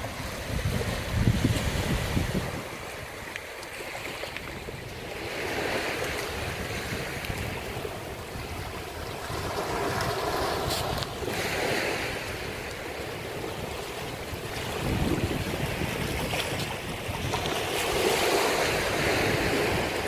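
Small Mediterranean waves washing up a sandy shore and drawing back, swelling every few seconds, with wind gusting on the microphone in low rumbles about a second in and again near the middle.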